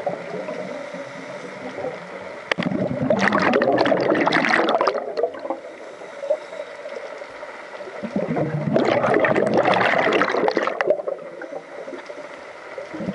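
A scuba diver breathing through a regulator underwater. Two long exhalations of gurgling, crackling bubbles come a few seconds apart, the first about two and a half seconds in and the second near the two-thirds mark. Between them is a quieter water wash.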